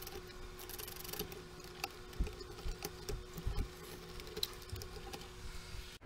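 Small clicks, taps and rustles of hands handling a circuit board and its wiring inside a receiver's metal chassis, with a few louder low knocks in the middle.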